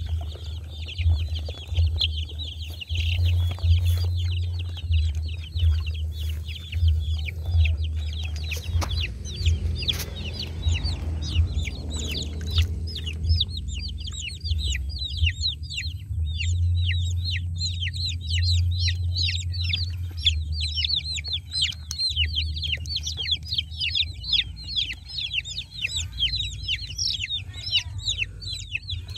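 Young chicks peeping continuously: high, falling chirps several a second, thickest in the second half. In the first half there is water sloshing in a basin as they are dunked, and a steady low hum runs underneath.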